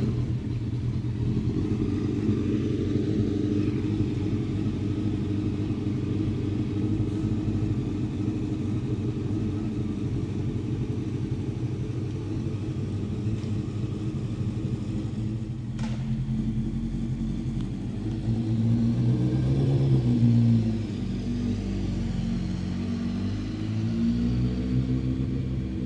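Honda CBR900RR Fireblade's inline-four engine with a Yoshimura exhaust, idling steadily just after starting. About 18 seconds in it revs up and runs louder for a couple of seconds before settling back, and near the end its pitch rises and falls again.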